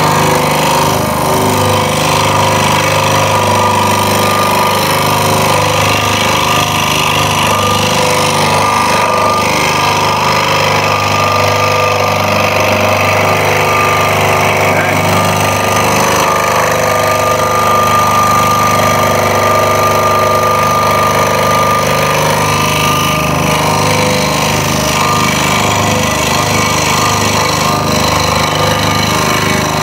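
Scroll saw running steadily, its up-and-down blade cutting through a wooden board as the piece is fed and turned along a tight, curving jigsaw-puzzle line.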